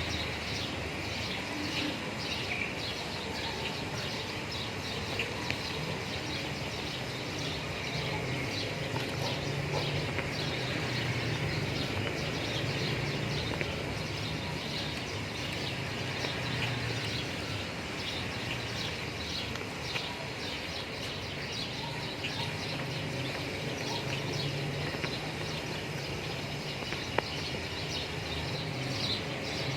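Outdoor ambience: birds chirping over a steady low background rumble.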